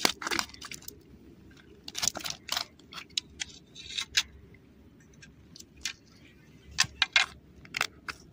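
Scattered sharp taps and clicks of a freshly caught fish flapping on rocks and gravel, then of hands holding it down to take out the hook.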